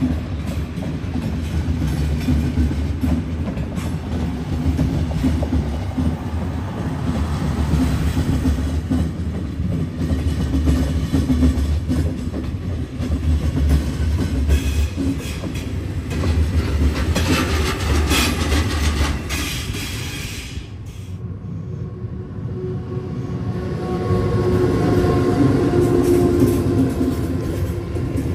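A train running past on the rails: a loud low rumble with wheel clatter. About three-quarters of the way through the clatter eases and a few steady whining tones come in.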